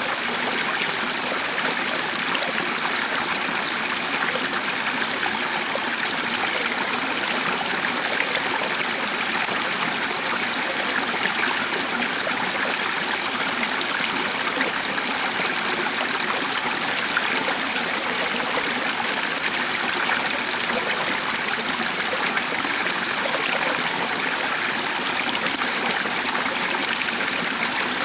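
Stream water running and trickling steadily, an even rushing sound with no change.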